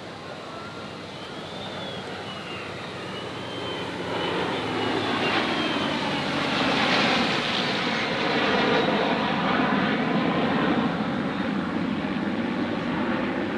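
Military aircraft flying past at an air show: engine noise swells about four seconds in, peaks near the middle and stays loud.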